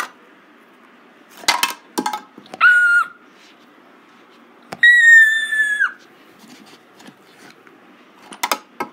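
Two high, steady squeals: a short one, then one about a second long falling slightly in pitch. Brief clatters of handled plastic toys come before and after.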